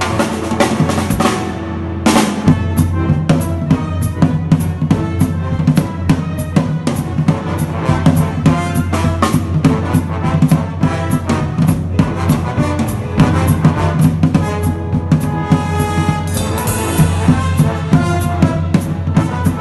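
Pearl drum kit driving a swing big-band groove with dense snare and bass-drum hits and rimshots, over an orchestra playing along. Near two seconds in there is a short let-up, then a strong hit as the band comes back in.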